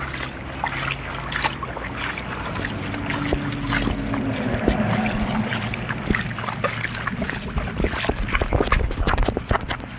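Wind rushing over the microphone outdoors as a storm approaches, with many short knocks and rustles that come thicker near the end.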